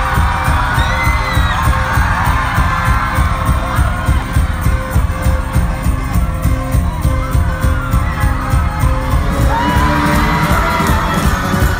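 Loud music over a concert venue's sound system with a heavily pulsing bass beat, while the crowd shouts and whoops.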